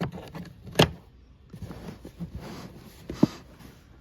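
Handling noises while working on a generator: a sharp click a little under a second in and a duller knock near the end, with light rustling between.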